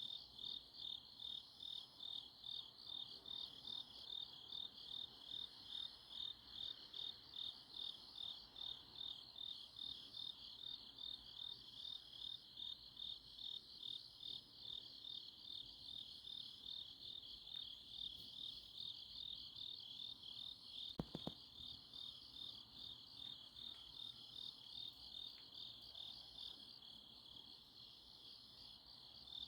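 Night grass insects (crickets) chirping in a steady chorus of pulsed trills, about two to three pulses a second. A single brief click sounds about three quarters of the way through.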